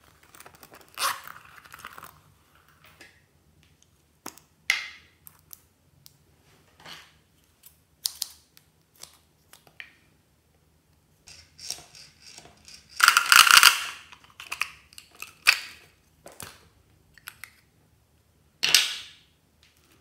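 Scissors snipping and small plastic toys being handled and clicked open: a series of separate short snips, clicks and crackles, the loudest about 13 seconds in.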